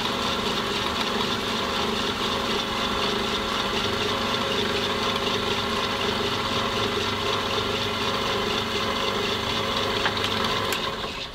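Pillar drill (drill press) running steadily as a 4 mm bit bores a hole into a block of wood, an even motor hum with the bit cutting. The sound drops away abruptly just before the end.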